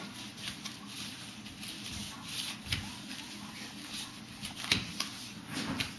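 Baby crawling on a foam puzzle mat: soft scattered pats of the hands on the foam and clothes rubbing, with one sharper tap just before five seconds in.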